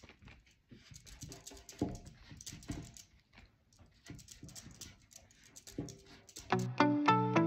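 A pad of corrugated cardboard scraping and dabbing over wet, textured chalk paint in short half-circle strokes, a quick run of scratchy rubs. Background music comes in near the end.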